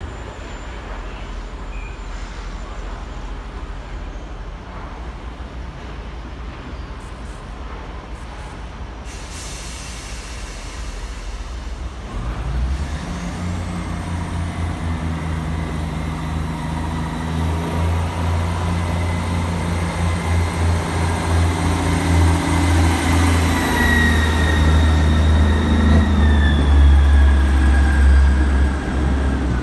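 Class 158 diesel multiple unit idling at the platform, with a hiss of air about nine seconds in. From about twelve seconds in its underfloor diesel engines open up and it pulls away, a deep engine note building louder with whining tones that shift in pitch as it accelerates.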